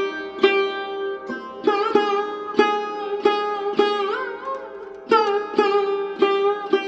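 Background music: a plucked string instrument plays a slow melody, one note every half second to a second, with one note bent and wavering about four seconds in.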